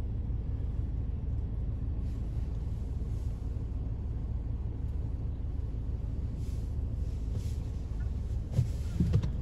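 Steady low rumble of a car idling, heard from inside the stationary car's cabin. A few short, louder sounds come near the end.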